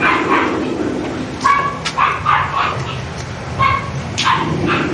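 Dogs barking repeatedly in short, sharp bursts, several quick barks in clusters.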